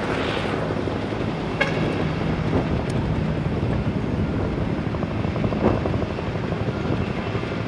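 Steady engine rumble and outdoor din from vehicles working at a fire scene, with one short vehicle horn toot about a second and a half in.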